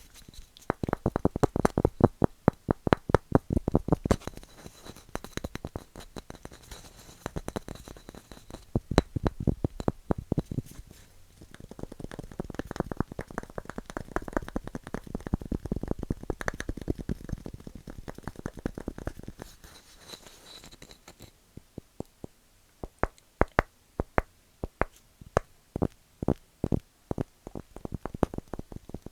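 Wood being tapped and scratched: quick runs of sharp taps, then about halfway through a stretch of continuous rubbing or scratching on the wood, then slower, spaced taps near the end.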